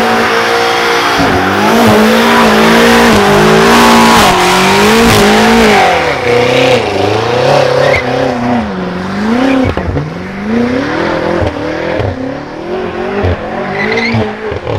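BMW saloon doing a burnout: the engine is held at high revs over the hiss and screech of spinning tyres. The revs climb and hold steady for about five seconds, then the throttle is worked up and down so the engine note rises and falls repeatedly and a little quieter.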